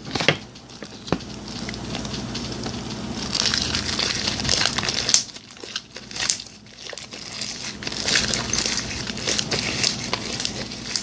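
Hands kneading and pulling sticky clear-glue slime, giving a continuous run of small wet crackles and clicks that eases off briefly about halfway through.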